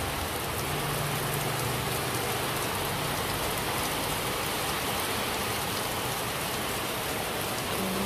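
Heavy rain pouring onto a minibus, heard from inside the cabin as a steady rushing hiss.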